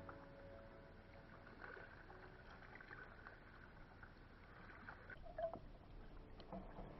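Faint sea water lapping and splashing against a plastic sit-on-top kayak as it is paddled, with scattered small knocks and one brief louder splash or knock about five seconds in.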